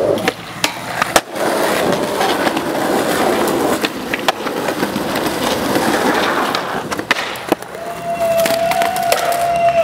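Skateboard wheels rolling over stone paving, with a few sharp clacks of the board popping and landing; the loudest comes about a second in. Near the end a steady high tone lasts about two seconds.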